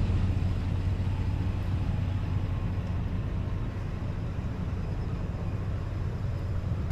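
A motor vehicle's engine running with a steady low hum, loudest at the start and easing off slightly.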